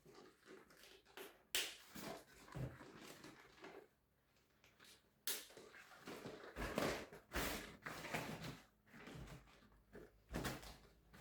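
Household objects being handled: four sharp knocks or bumps spread through, with rustling and scraping between them.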